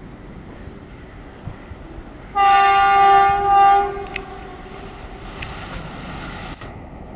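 Horn of twin WAG-5 electric locomotives sounding one blast of about a second and a half, starting about two seconds in and swelling once more before it stops. Under it runs the steady low rumble of the approaching locomotives.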